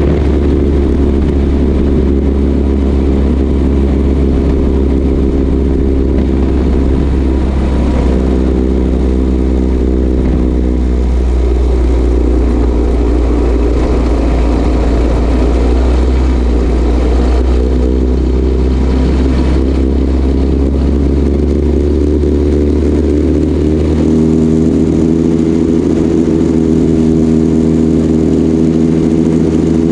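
Junior dragster's single-cylinder engine running at low engine speed, recorded by a camera mounted on the car; its pitch shifts a few times, around a third of the way in and again past two thirds.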